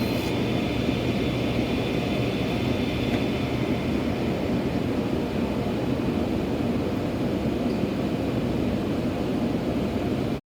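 SawStop table saw and shop dust collector running steadily together, with a low hum under a loud, even rush; it cuts off suddenly near the end.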